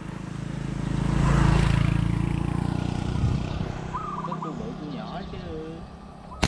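A motorbike engine running close by, growing louder to a peak about a second and a half in and then easing down. A bird's short trilled call comes about four seconds in.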